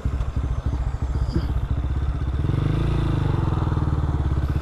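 Honda motorcycle with an aftermarket exhaust idling, a fast steady run of exhaust pulses; the engine note rises slightly and grows louder about halfway through. The exhaust is loud enough that the rider was fined for it.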